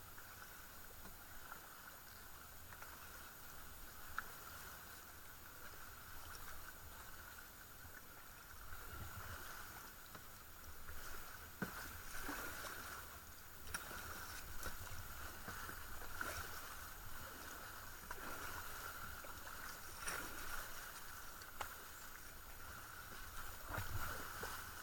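Double-bladed kayak paddle dipping into calm river water in steady strokes, with faint splashes and drips. The strokes are quieter for the first several seconds and louder after about nine seconds, coming roughly every second or so.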